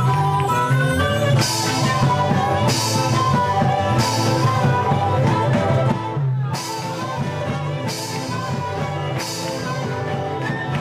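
Band music led by guitar, with a hissing cymbal-like stroke about every second and a half; it thins out briefly about six seconds in and carries on a little softer.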